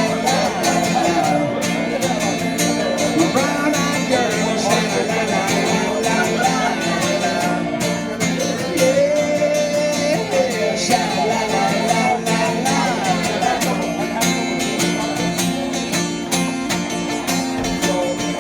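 Live music: an acoustic guitar, from 1985, strummed in a steady rhythm with a voice singing a wordless melody over it.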